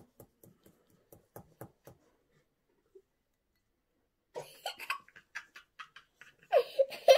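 Faint light tapping, then a pause, then young girls giggling and laughing from about four seconds in, loudest near the end.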